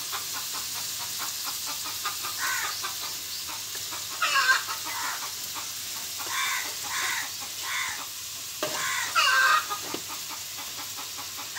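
Chickens clucking, with several short calls scattered through and a longer call about nine seconds in, over a steady sizzle of chicken pieces frying in a karai.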